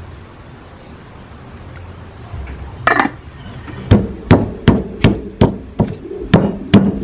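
A stone pestle (ulekan) striking lemongrass and galangal in a volcanic-stone mortar (cobek), bruising them in ground spice paste. About three seconds in comes a string of sharp knocks, roughly two to three a second.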